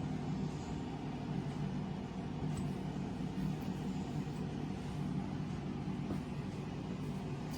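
Steady low mechanical hum, with a few faint ticks over it.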